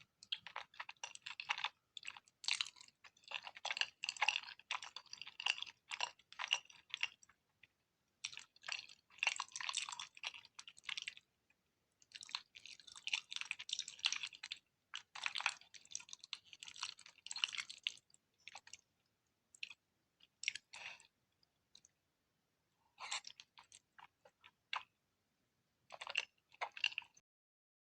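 Close-miked mouth sounds of a person chewing cheesy food: wet, clicky chewing in runs of a few seconds with short pauses between mouthfuls, and a longer lull about two-thirds of the way through.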